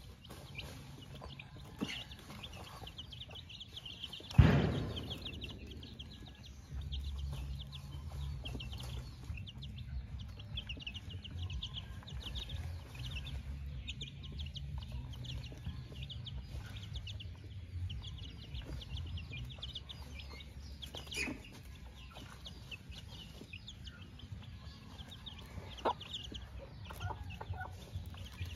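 White Kelso gamefowl hen clucking while her chicks peep in a constant stream of short high chirps as they feed. A sharp thump about four seconds in is the loudest sound, with a few softer clicks later on.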